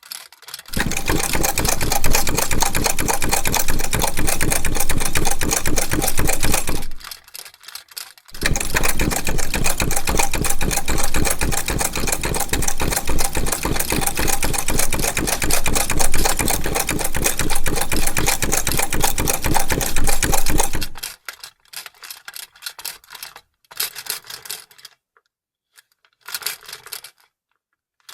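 Vintage sewing machine running at speed in two long runs, a rapid even clatter of stitching. It pauses briefly about seven seconds in and stops at about twenty-one seconds, followed by a few short clicks and taps.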